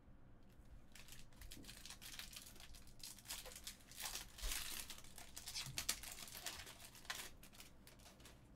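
Foil wrapper of a trading-card pack crinkling and tearing as it is opened and handled, a dense run of crackles starting about a second in.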